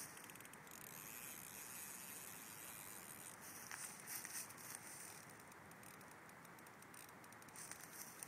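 Near silence: faint outdoor background hiss with a few soft scattered ticks and rustles.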